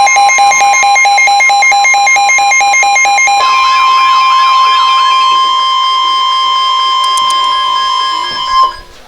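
Emergency Alert System alert tones ahead of a flash flood warning: a fast, evenly pulsing electronic beeping, then about three and a half seconds in a steady alert tone that cuts off abruptly near the end.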